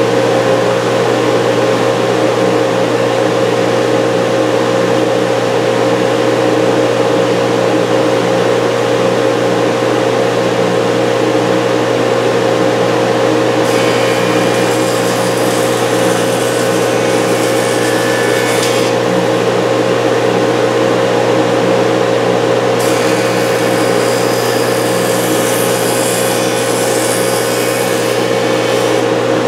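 JET jointer running with a steady motor hum. A board's edge is fed across the cutterhead twice, about 14 and about 23 seconds in, each pass adding a higher cutting noise for about five seconds as the edge is jointed straight and square to the board's face.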